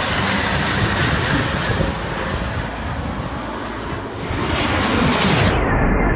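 Jet airliners passing low overhead: a steady, loud jet engine rush. It changes abruptly about four and again about five and a half seconds in, as one flyover gives way to the next.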